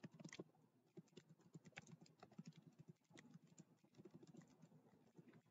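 Faint computer keyboard typing: a quick run of key clicks with a few short pauses as a word is typed.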